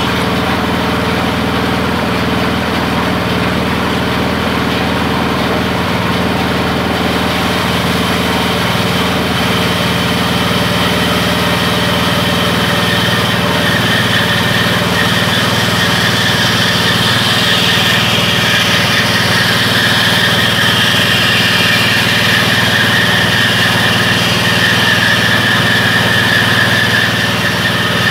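Small single-cylinder petrol engine running steadily, driving a home-built bandsaw. About halfway through, a steady, higher-pitched sound joins as the blade cuts into a wooden board.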